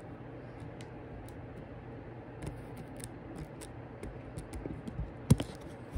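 Scattered light clicks and taps over a low steady room hum, with one sharper, louder click about five seconds in.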